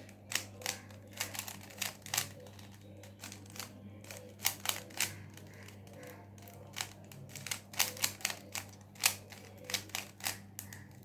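Rubik's cube being turned fast by hand: the plastic layers click and clack as they snap round, in quick irregular flurries, over a steady low hum.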